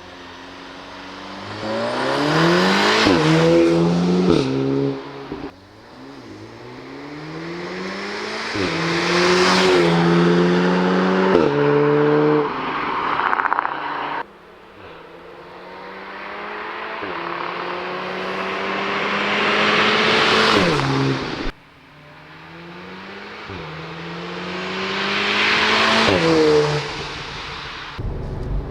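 2019 Audi S3's 2.0 TFSI turbocharged four-cylinder engine and exhaust under hard acceleration. The revs climb and drop back in quick steps at each upshift, over four pulls that each cut off abruptly.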